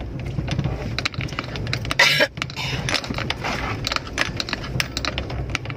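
Car cabin noise: a steady low engine and road rumble with frequent small clicks and rattles, and a short hiss about two seconds in.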